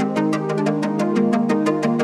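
Background music: sustained chords over a fast, steady ticking beat, about five or six ticks a second.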